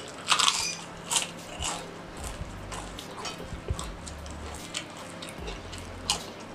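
Black ghost pepper potato chips crunching as they are bitten and chewed close to the microphone: a loud crunch about half a second in, smaller crackles while chewing, and another bite near the end.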